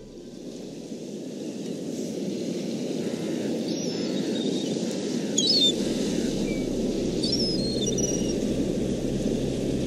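Sea surf washing over a shingle beach, a steady rushing that swells slowly louder, with a few short high bird chirps above it.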